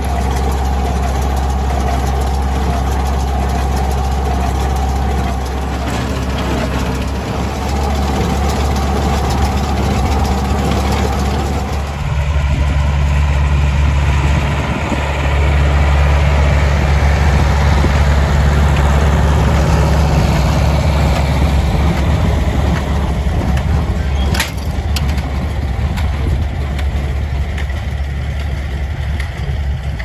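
International 885XL tractor's four-cylinder diesel engine running steadily under load while pulling a small square baler through hay. It grows louder as the tractor passes close about halfway through, then fades as the tractor moves away.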